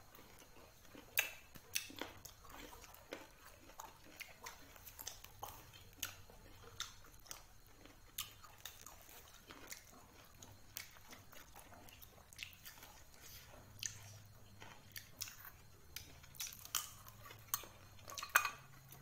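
A person chewing and biting into crisp mango slices: faint, irregular short crunches and clicks, the loudest a second or so before the end.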